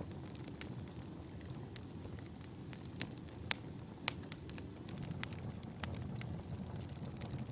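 Wood fire burning in a fireplace, a steady low rumble of flames with scattered sharp crackles and pops, two louder pops about halfway through.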